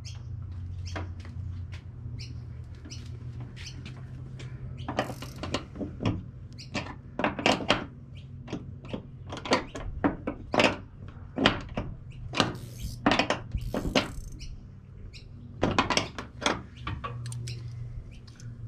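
Irregular metallic clicks and knocks of a 12 mm spanner working the bolt on a bonnet gas strut, over a steady low hum.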